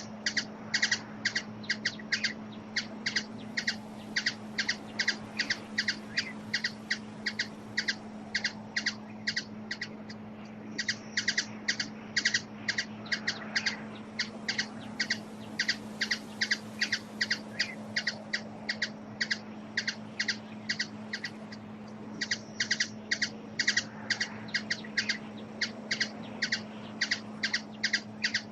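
A bird repeating short, sharp chip notes, about three a second, in long bouts with a couple of brief pauses, over a steady low hum.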